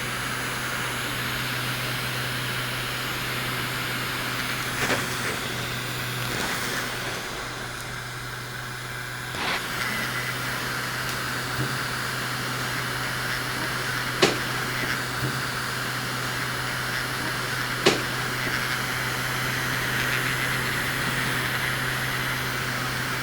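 Miniature portable air conditioner's fan running steadily with a low hum and a rushing hiss, broken by a few sharp clicks.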